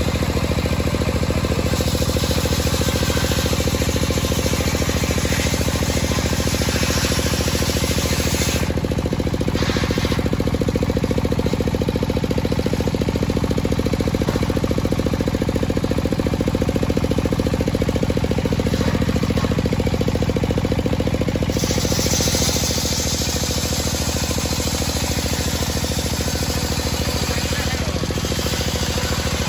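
Large circular saw blade of a homemade sawmill ripping lengthwise through a dry teak log, a steady machine drone under the continuous noise of the cut. The sound drops a little in level and changes character late on.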